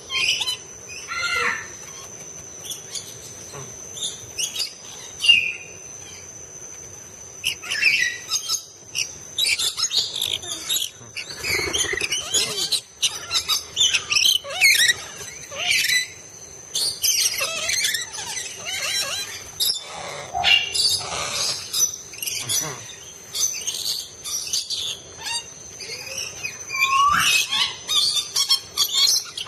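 Flock of parrots calling, with many short harsh screeches and chirps overlapping, over a steady high-pitched whine.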